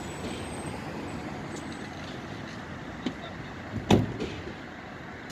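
Fire engine standing and running at idle, a steady engine noise, with one loud sharp knock just before four seconds in.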